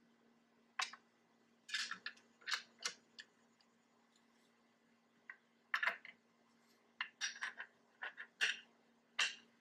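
Irregular clicks and clattering of the hitch bike rack's wheel tray and fittings being handled and adjusted by hand, in small clusters, over a faint steady hum.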